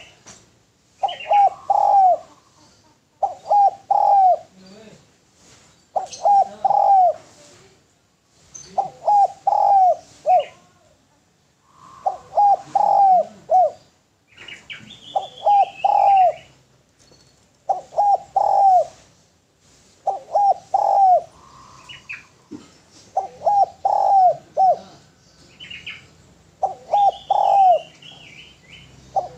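Spotted dove (derkuku) cooing: a short phrase of three or four low coos, repeated every two to three seconds. Thin, higher chirps from small birds come between some of the phrases.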